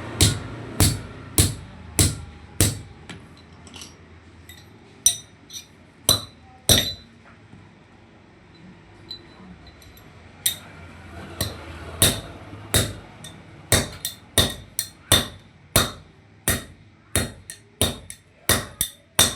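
Sharp metallic clinks with a short ring, struck in a steady rhythm about one and a half times a second. They pause for a few seconds midway, then return and quicken to about two a second.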